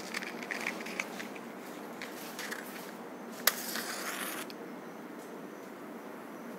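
Quiet rustling and light clicks of small objects being handled, then a matchstick struck on its box about three and a half seconds in, with a sharp scrape and about a second of hiss as it flares, to light the ceremonial oil lamp.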